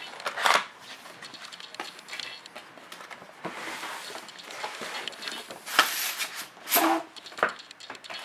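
Cardboard graphics-card box being handled while its printed outer sleeve is slid off the black inner box. The cardboard scrapes and rustles, with several short sharp knocks, the loudest coming in the second half.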